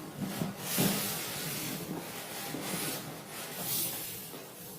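Cardboard box of a jet pump rubbing and scraping as it is handled and turned, a run of uneven swishes.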